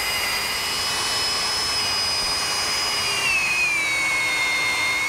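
Corded electric drill with a one-inch bit running steadily as it bores the pipe hole through the house wall. Its whine drops in pitch about three seconds in as the bit comes under heavier load.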